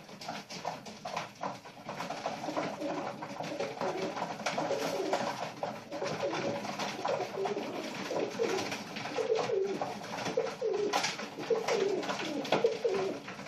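Racing pigeons cooing, the short low coos coming more often in the second half, with light clicks and rustling throughout.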